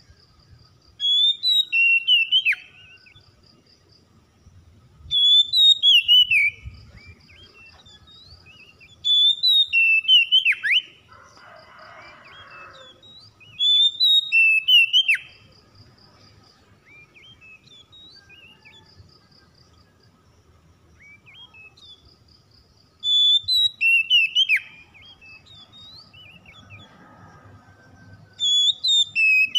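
Oriental magpie-robin singing: six short, loud bursts of clear whistled song with quick descending notes, each lasting under two seconds and spaced several seconds apart.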